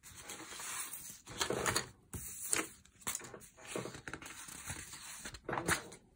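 Loose sheets of printer paper rustling and sliding against each other as they are handled and shuffled, in a series of short irregular bursts.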